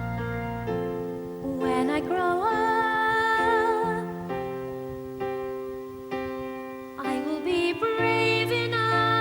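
Gentle music on piano or keyboard, with a held melody line that wavers in pitch from about two to four seconds in and a new phrase starting near the end.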